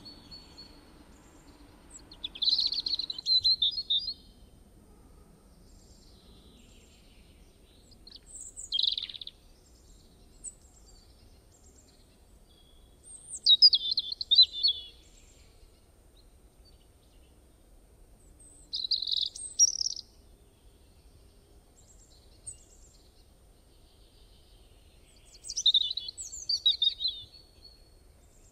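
Birdsong sound effect: five short phrases of high chirping, each a second or two long and a few seconds apart.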